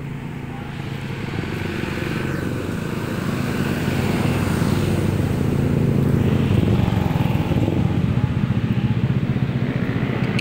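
A road vehicle's engine running close by, growing louder over the first six seconds and then holding steady.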